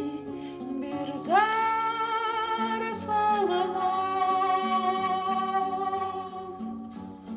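1969 Turkish pop 45 rpm vinyl record playing. A wavering melody line slides up into a long held note about a second in and moves to another held note around three seconds in, over plucked guitar and bass.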